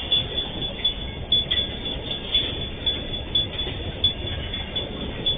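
Freight train of empty open-top wagons rolling past, a steady low rumble of wheels on rail with frequent irregular clanks and brief high squeaks.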